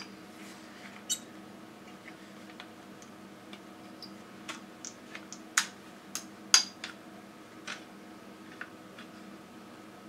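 Irregular small, sharp clicks and knocks of hard parts from a laser toner cartridge being handled and fitted, about a dozen, the loudest two a little past the middle.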